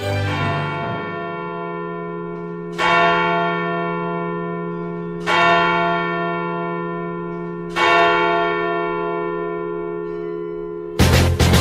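A bell tolling: three strikes about two and a half seconds apart, each ringing on and slowly fading, following on from one already ringing. Music with a beat cuts in near the end.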